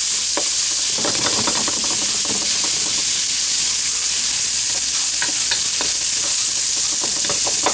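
Spam frying in a hot wok, a steady loud sizzle, while it is stirred. Short scrapes and clicks of the stirring utensil against the wok come at intervals, busiest about a second in and again in the last few seconds.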